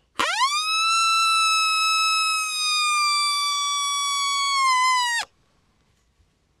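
Hand-held coyote howler call blown as one long lone howl: it rises quickly, holds, sags slightly in pitch near the end and stops abruptly after about five seconds. The howl is the first stage of calling, meant to bring coyotes in.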